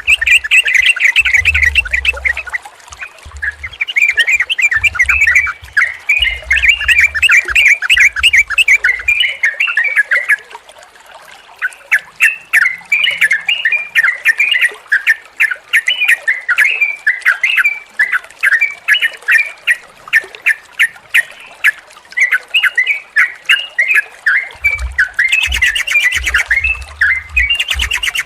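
Yellow-vented bulbuls (trucukan) chattering and singing, a fast run of sharp, bubbling notes that pauses briefly about ten seconds in, then carries on. A low rumble sits under the birds near the start and again near the end.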